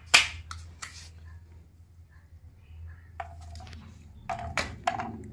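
Coconut meat cracking as it is prised out of the shell by hand, with a loud snap at the start and another just under a second in. Near the end come several clicks with a short metallic ring as pieces are set down on a steel lid.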